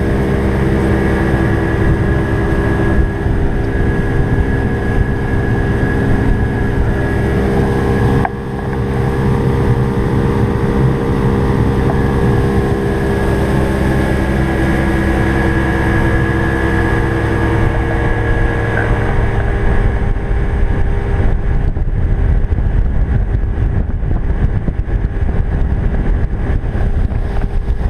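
Aquasport motorboat's engine running steadily underway, with water and wind noise. The level dips briefly about eight seconds in.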